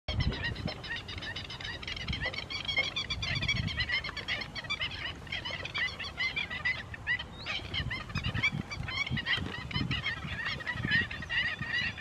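Black-winged stilts calling over and over in short, high notes, several birds at once with many calls a second: the alarm and territorial calls of stilts squabbling over a perch.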